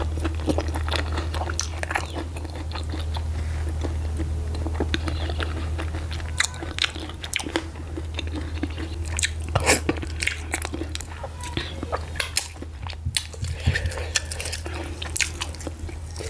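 Close-miked wet chewing and lip smacks of a person eating garri fufu with slimy ogbono soup by hand, with many short sharp mouth clicks that come thicker from about six seconds in. A steady low hum sits underneath.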